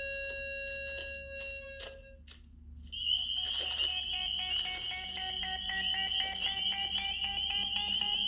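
Horror-film soundtrack: a held chord of eerie steady tones that cuts off about two seconds in, then after a brief hush a high, slightly warbling tone with a lower one beneath it over fast regular ticking.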